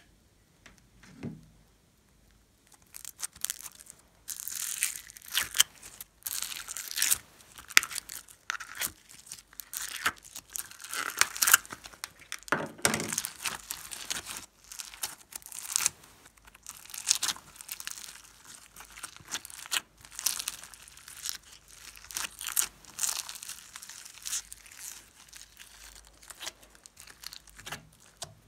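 Hands stretching and squeezing a lump of slime studded with foam beads, making irregular crackling and tearing sounds that start about three seconds in.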